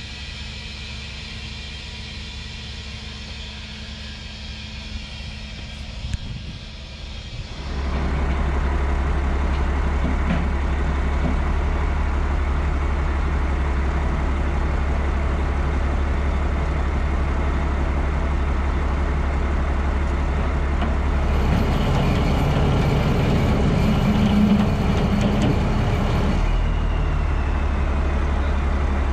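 Heavy tow truck's diesel engine running steadily. It becomes much louder about eight seconds in, and for a few seconds near the end an extra hiss and rumble joins it.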